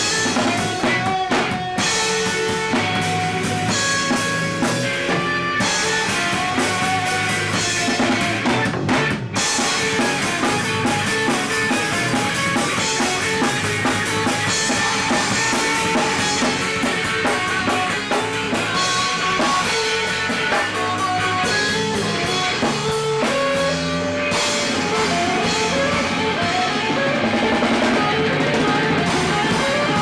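Ska-punk band rehearsing live: drum kit with cymbals and electric guitars playing together, loud and continuous, with a momentary break about nine seconds in.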